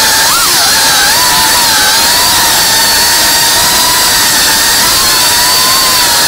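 3.5-inch cinewhoop FPV drone's motors and ducted propellers whining steadily and loudly, heard from its onboard camera, the pitch wavering slightly with throttle and briefly rising about half a second in.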